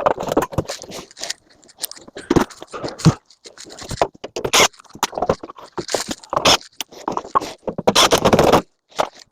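Scrap metal being handled: irregular scraping and knocking, loud, with a few brief pauses.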